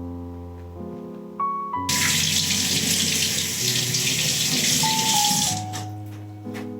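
Water tap turned on and running into a sink for about three and a half seconds, starting and stopping abruptly, over soft piano music.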